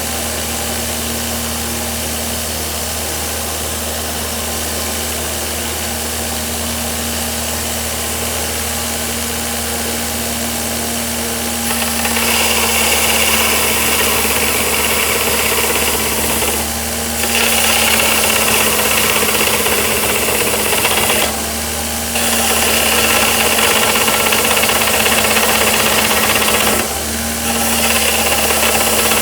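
Bench grinder motor driving a 2x42-inch belt grinder attachment. It runs steadily at first; from about twelve seconds in, steel C-channel is pressed against the belt, giving a louder, hissing grind in four passes separated by three short breaks where the piece comes off the belt.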